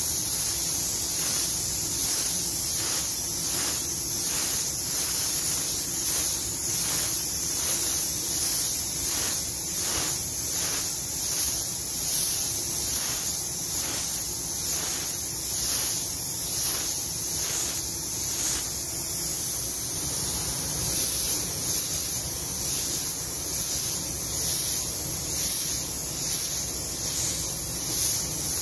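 Compressed-air paint spray gun hissing steadily as blue basecoat is sprayed over a bumper spot repair, the hiss swelling and fading in even pulses as the gun moves over the panel.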